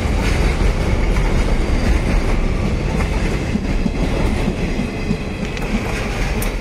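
Covered car-carrier wagons of a freight train rolling past at close range, the wheels on the rails giving a heavy steady rumble with a thin high ring over it. The noise eases slightly near the end as the guard's brake van at the tail goes by.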